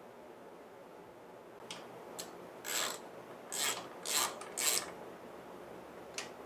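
About five short rasping scrapes in quick succession, then a few light clicks near the end, from hand work fitting parts on a lawn tractor engine.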